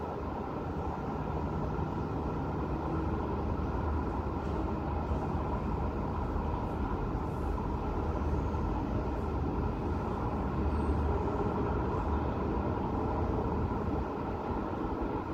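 Steady hum of city road traffic heard from high above, a continuous low rumble of passing vehicles with no single event standing out.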